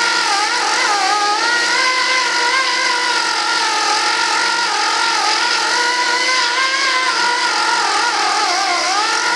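Small electric power tool running continuously, its pitch wavering up and down as it is pressed against the work.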